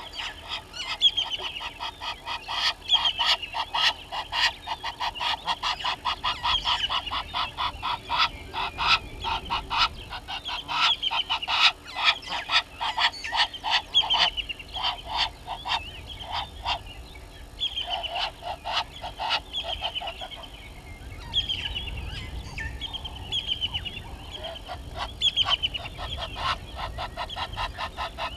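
Helmeted guineafowl calling: a long run of rapid, harsh cackling notes that keeps up with only a couple of short lulls.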